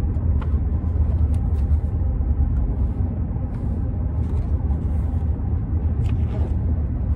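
Steady low rumble of a car, heard from inside the cabin, with a few faint ticks over it.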